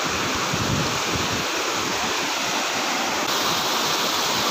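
Waterfall rushing steadily, an even wash of falling water; the hiss gets a little louder and brighter about three seconds in.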